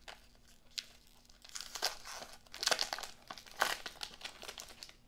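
Wax-paper wrapper of a 1992-93 Topps basketball pack crinkling and tearing as it is peeled open by hand, in several irregular crackles, the loudest a little after the middle.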